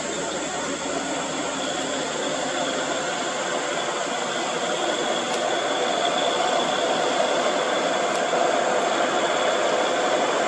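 Diesel engine of a Hino 500 container truck running under load, a steady drone that grows a little louder through the stretch.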